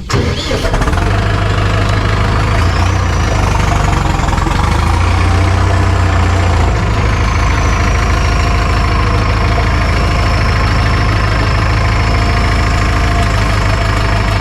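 Farm tractor's diesel engine running loud and steady, coming in suddenly at the start, with a high whine that rises over the first few seconds and then eases down to a steady pitch.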